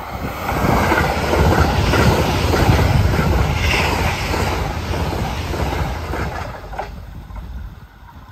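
Limited-express electric train passing at high speed: a rushing rumble of wheels on rail with air rush, loudest about three seconds in as the cars go by close and fading as the train moves away.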